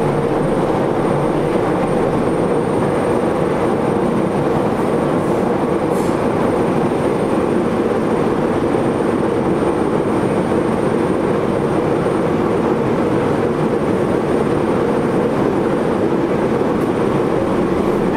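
Nagoya Subway N3000 series train running at steady speed, heard from inside the car: even, unbroken wheel-on-rail and running noise with no rise or fall in pitch.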